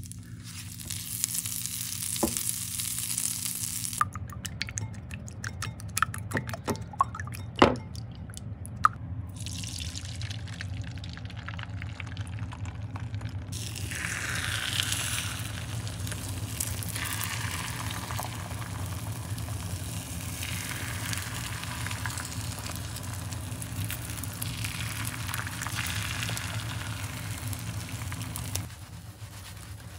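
Butter sizzling and crackling in a hot nonstick frying pan, then a run of sharp clicks and knocks, then beaten eggs frying with a steady sizzle as a silicone spatula stirs them, over a low steady hum.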